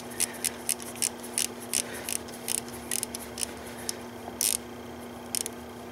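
Ratchet wrench clicking in short, irregular runs as the water pump's mounting nuts are backed off, with a steady low hum underneath.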